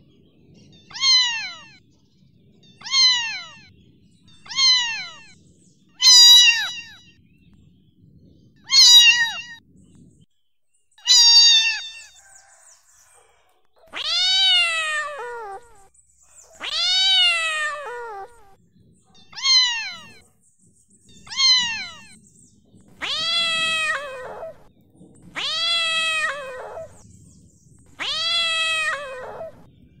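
Domestic cat meowing again and again, about one meow every two seconds, each falling in pitch at the end. The first meows are short; from about halfway through most are longer, drawn-out meows.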